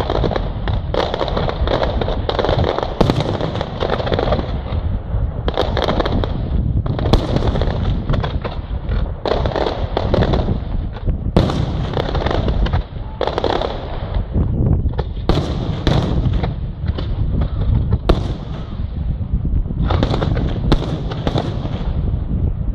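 Fireworks display: many sharp bangs close together, over a continuous low rumble.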